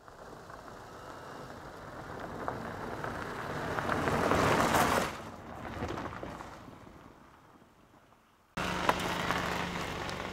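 A car drives past: engine and tyre noise builds up to its loudest just before halfway, drops off sharply, swells briefly again and fades away. Near the end it cuts to the steady hum of a car's interior.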